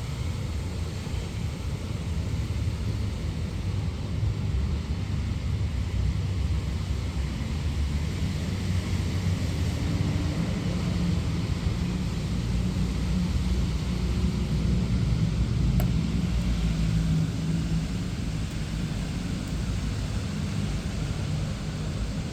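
Steady rain hiss with passing traffic: a low vehicle rumble builds, is strongest through the middle, then eases off.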